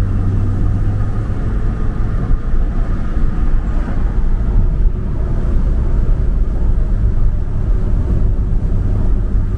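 Steady low rumble of road and engine noise inside a moving car travelling on a highway.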